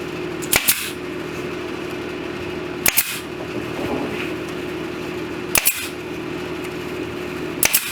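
Pneumatic brad nailer firing four times, about every two and a half seconds, each shot a sharp double click, over a steady hum.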